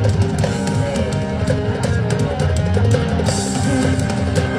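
Music from a Bengali song playing without vocals: drum kit keeping a steady beat, with guitar and bass.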